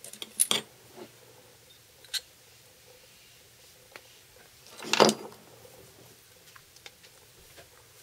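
Small metal tools and knife parts clicking and clinking against each other and the wooden bench as a folding knife is taken apart. The loudest clatter comes about five seconds in, with lighter ticks after it.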